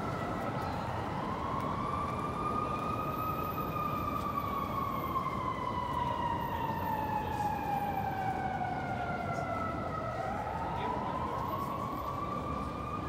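Emergency vehicle siren wailing: one slow rise over about three seconds, a long fall, then rising again near the end, over steady city traffic noise.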